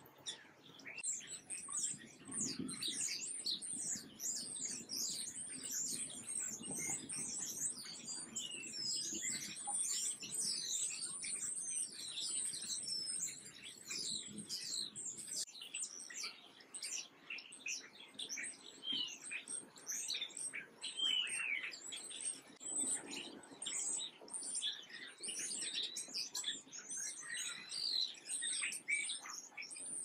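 A flock of house sparrows chirping, many short overlapping chirps with no break.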